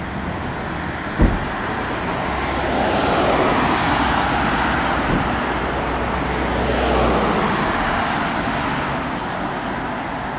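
Cars passing on a road beside the railway line, with a swell of tyre and engine noise twice as they go by. There is one sharp low thump about a second in.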